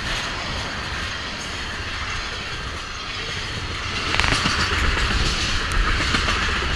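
Freight train of tank cars rolling past: steel wheels running on the rails in a steady rattling noise. About four seconds in it grows louder and hissier, with a few sharp clicks.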